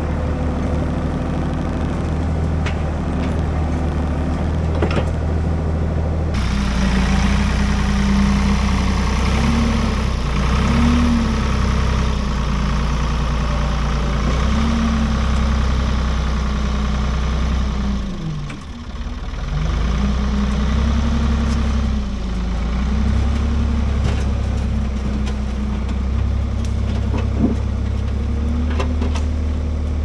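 Ford 555 backhoe's diesel engine running under load while the hydraulics push over a tree. Its note rises and falls again and again as the load comes and goes, and dips briefly about two-thirds of the way through.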